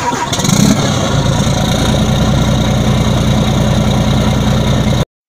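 A vehicle engine running steadily with an even low pulsing, swelling briefly just under a second in, then cutting off suddenly about five seconds in.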